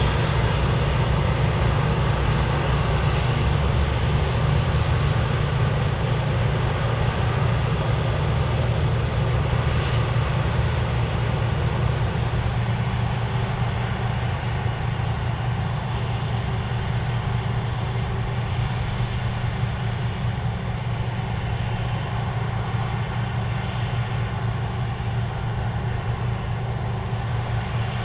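Claas Lexion 780TT combine running steadily while harvesting: a deep engine hum over dense machinery noise, easing a little about halfway through.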